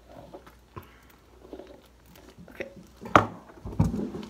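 Close handling noises: a few light taps and rustles, then two heavier thumps, one just past three seconds in and one near four, as a shoe is picked up and handled.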